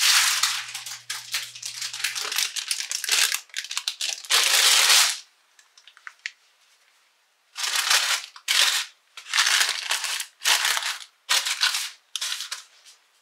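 Paper crinkling and rustling: near-continuous for the first few seconds, then a pause of near quiet, then a string of short crinkles about one or two a second. A faint low hum stops about two seconds in.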